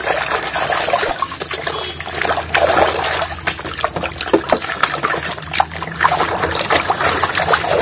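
A hand swishing and splashing through a plastic basin of muddy, foamy water, with many small splashes and trickles.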